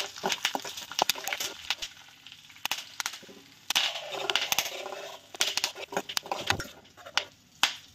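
Cucumber seeds frying in hot ghee in an aluminium kadai, sizzling and crackling, while a steel spoon stirs them and knocks and scrapes against the pan in irregular sharp clicks.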